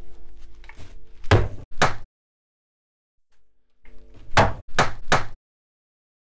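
Rubber mallet striking the wooden corner blocks of an upturned chair frame to knock them loose: two sharp blows, a pause, then three more in quick succession.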